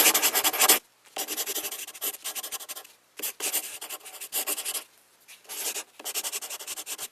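Several bursts of scratchy rubbing noise, each one to two seconds long with short breaks between, made of fast fine ticks.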